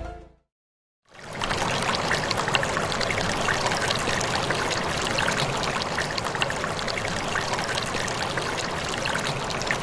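Steady crackling hiss, dense with fine pops and clicks, that starts about a second in after a short silence and runs without change.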